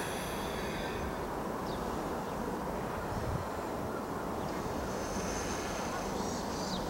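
Steady low running noise of a JR Central 313 series electric train standing at a station platform with its equipment running. A bird calls at the start and again near the end.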